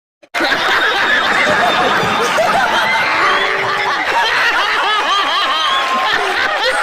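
Many people laughing and giggling together in a dense, overlapping mass, starting suddenly out of silence just after the start.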